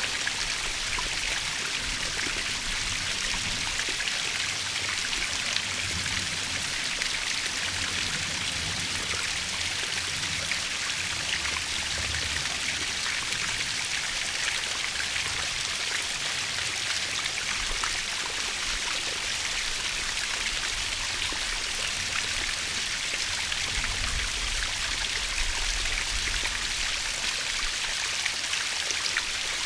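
Waterfall: a steady, hissing rush of falling water splashing, with uneven low rumbles here and there.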